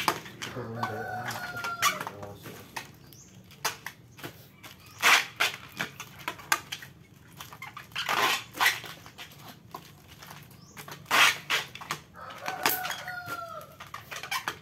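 A rooster crows twice, about a second in and again near the end. In between come repeated sharp crinkles and rustles of thin plastic bags being handled, the loudest of them about five, eight and eleven seconds in.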